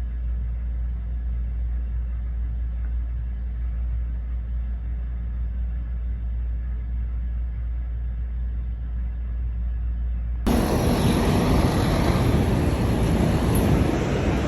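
Steady low city rumble. About ten seconds in, it switches abruptly to a much louder, full-range rushing noise.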